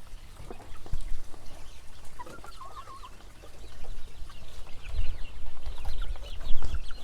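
Game fowl chickens clucking: a short wavering call about two seconds in, then a run of quick, high clucks through the second half.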